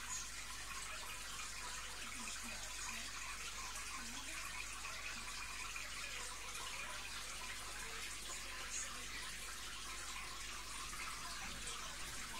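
Aquarium filter water running steadily into the tank: a soft, even trickle with no breaks.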